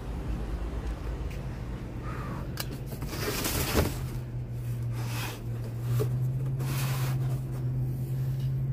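Cardboard boxes and plastic bags rustling and scraping in a dumpster in a few short bursts, over a steady low hum.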